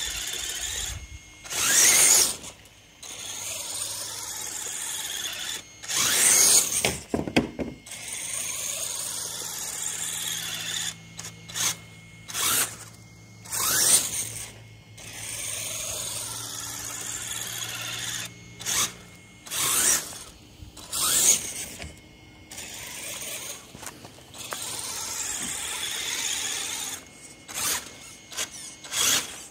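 RC rock crawler's electric motor and gears whining, the pitch climbing in glides as it speeds up. Several loud, short grinding bursts break in every few seconds.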